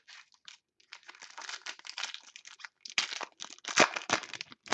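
Foil wrapper of a football trading-card pack crinkling and tearing as it is ripped open by hand. The rustling is loudest about three to four seconds in.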